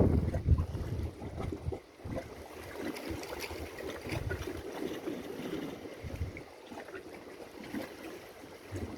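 Wind gusting on the phone microphone in uneven low rumbles, over water lapping and splashing on shoreline rocks.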